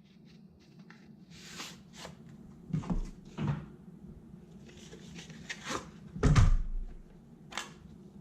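A plastic tool case and its contents being handled and opened: a string of clacks and knocks with rustling between them, the loudest knock about six seconds in.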